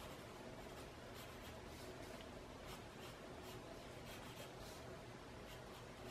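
Faint graphite pencil strokes scratching across a paper tile: a string of short quick lines at an uneven pace, over a low steady hum.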